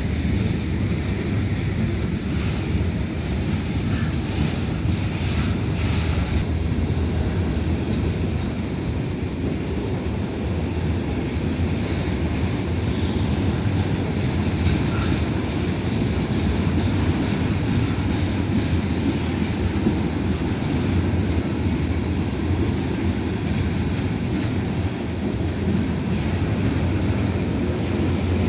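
Freight train rolling past on the rails, a steady, unbroken rumble.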